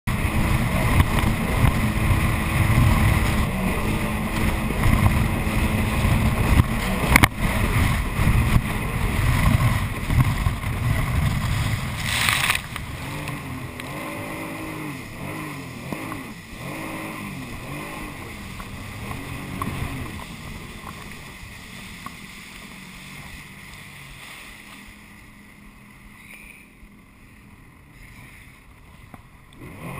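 Jet ski running at speed, its engine and rushing water and wind loud on a chest-mounted camera for about twelve seconds. A short burst of noise comes at about twelve seconds, then the sound drops much quieter, with the engine note rising and falling before it fades lower.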